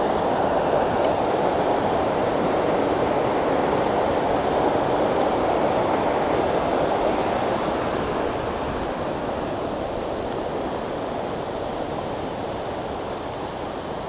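Steady rush of a stream running over rocks, growing fainter after about eight seconds.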